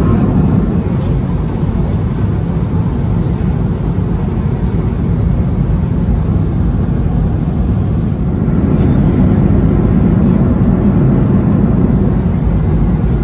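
Steady low rumble inside the cabin of an Airbus A330 in flight: rushing air and the Rolls-Royce Trent 700 engines.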